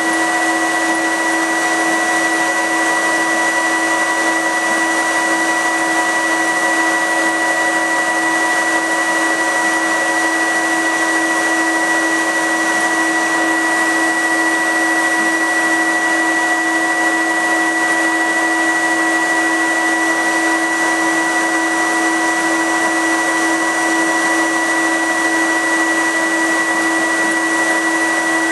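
Laser cutter's fume filter unit running loud: a steady rushing fan noise with several steady tones on top, unchanging throughout.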